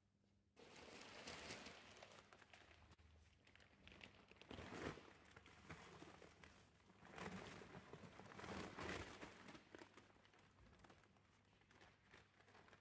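Faint rustling and crinkling of a flour sack as flour is poured out of it into the stainless steel bowl of a spiral dough mixer. It starts about half a second in and swells several times as the sack is tipped and shaken.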